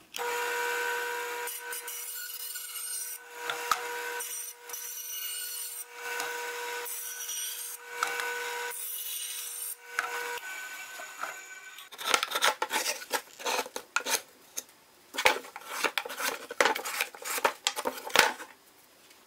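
A bandsaw runs with a steady hum and makes several short angled cuts through maple end grain; its motor tone stops about ten seconds in. Then a hand rasp scrapes across the wood in quick strokes, rounding off sharp corners.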